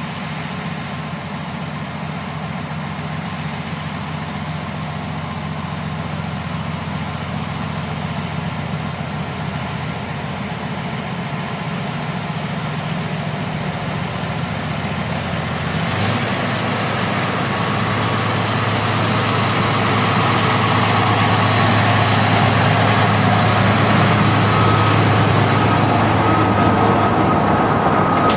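Diesel locomotive hauling a passenger train, its engine running steadily and growing louder as it approaches; about halfway through the low engine note drops and grows stronger as it draws close.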